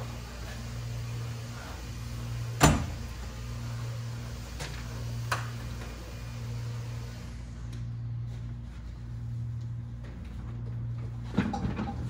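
Knocks and clatter from a refrigerator being handled on a dolly in a doorway, over a steady low hum. One sharp knock about two and a half seconds in, a lighter click a few seconds later, and a quick run of rattling knocks near the end.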